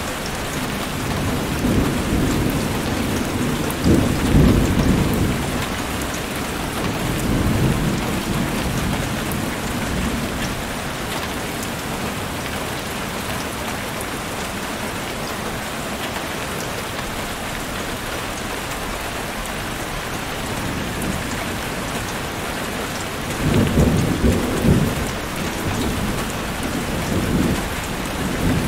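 Thunderstorm: steady rain with thunder rumbling low and rolling over the first ten seconds, and again a few seconds before the end.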